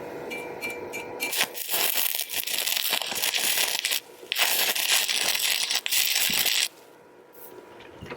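Welding arc crackling and hissing steadily, with a short break about four seconds in, then stopping near the end.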